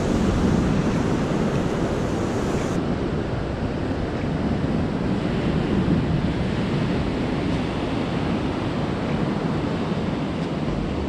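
Ocean surf breaking and washing up the beach in a steady roar of noise, with wind on the microphone. The highest part of the hiss drops away about three seconds in.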